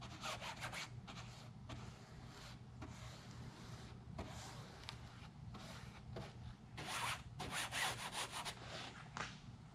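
Faint scratchy rubbing of a pencil tip pressing and working a glued fabric patch into place on a fabric-covered wing, in short irregular strokes, with a denser run of strokes about seven to eight and a half seconds in. A low steady hum lies underneath.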